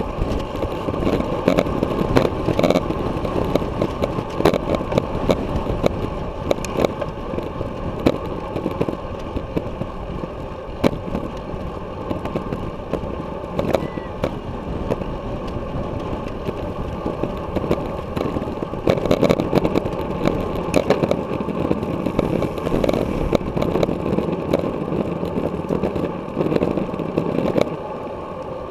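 Wind rushing over the microphone of a bicycle-mounted action camera at racing speed, mixed with tyre and road rumble on concrete, with frequent small clicks and rattles from bumps in the road.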